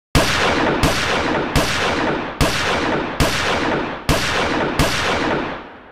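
An intro soundtrack of seven heavy booming hits, about one every 0.8 seconds. Each hit rings out, and the last fades away near the end.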